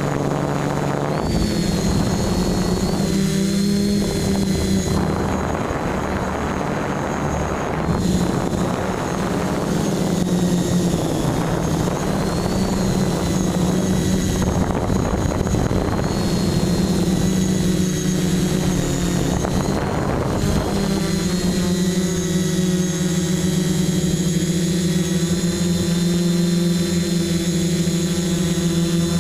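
Electric motors and propellers of an FPV racing quadcopter, heard from its onboard camera: a continuous buzzing whine over rushing air, its pitch rising and falling with the throttle. From about two-thirds of the way in the tone holds steadier as the quad slows near the ground.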